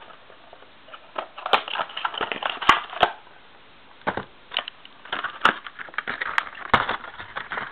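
Crinkling and rustling of plastic packaging being pulled open and handled, heard as irregular crackles and clicks. There is a short pause about three seconds in.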